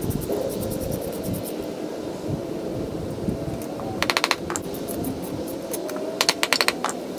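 Two short bursts of rapid, evenly spaced metallic clicking, about four seconds in and again near the end, like a ratchet turning while nuts are tightened onto the bolts that hold the rail's supports. A steady hum runs underneath.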